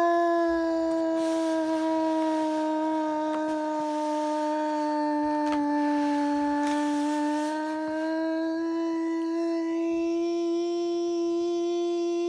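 A voice holding one long, steady note, its pitch sagging a little in the middle and climbing back.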